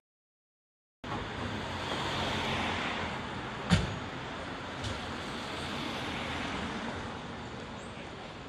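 After about a second of silence, city street traffic noise, swelling as a car passes. A sharp knock comes a few seconds in, with a fainter click about a second later.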